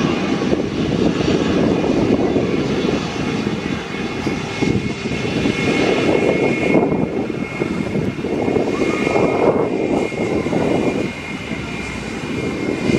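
Airliner engines running loud and steady, with a high whine that comes in about halfway through. Gusting wind rumbles on the microphone underneath.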